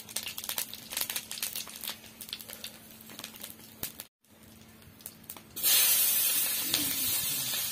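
Light crackling of masala and cumin seeds in a little hot oil in an iron kadhai. About five and a half seconds in, sliced onions go into the oil and set off a loud, steady sizzle.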